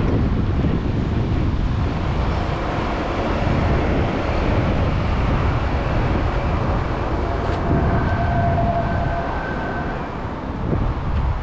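City street traffic: a car drives slowly past close by over steady road noise, with wind rumbling on the microphone.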